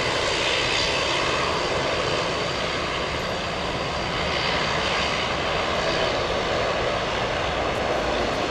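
Airbus A380-841's four Rolls-Royce Trent 900 turbofans climbing out after takeoff: a steady, even jet engine noise.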